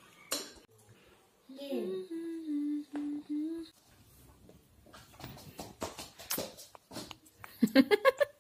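A voice humming one held note for about two seconds. It slides down into the note and then stays steady. Scattered light knocks and taps follow, and a short burst of voice comes near the end.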